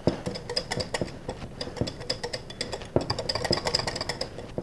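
Wire whisk stirring thick barbecue sauce in a glass bowl, its wires clicking and scraping against the glass in a quick, uneven rhythm.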